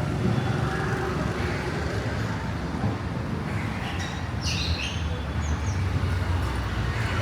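Street traffic: a steady rumble of passing vehicles, with a few short high chirps about four to five seconds in.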